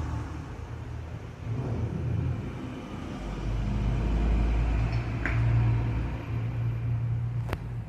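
Cat snoring in its sleep: a low rumble that swells and fades in slow waves. A short chirp comes about five seconds in, and a sharp click near the end.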